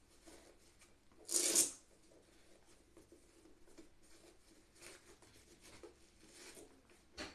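Shoelaces being threaded and pulled through a new sneaker's eyelets: faint rustling and small scrapes, with one louder swish of a lace drawn through about a second and a half in, and a short click near the end.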